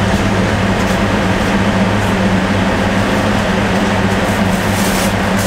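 Steady, loud machine hum: a constant low drone with a second, higher hum line over an even noise, unchanging throughout.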